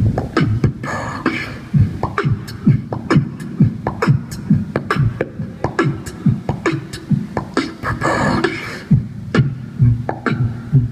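Beatboxing into a microphone over a stage PA: a steady beat of deep kick sounds that drop in pitch, sharp snare-like clicks and hissed hi-hats, with a longer hiss about a second in and again about eight seconds in.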